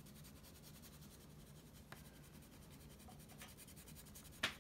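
Faint scratching of a wax crayon rubbing back and forth on paper as an area is coloured in. A couple of light ticks, and a sharper tap just before the end.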